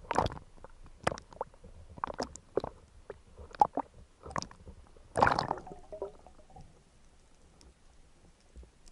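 Sea water splashing and gurgling as a spearfisher breaks the surface with a speared gilthead sea bream. There is a run of irregular splashes, loudest at the start and about five seconds in, and then it settles to faint lapping.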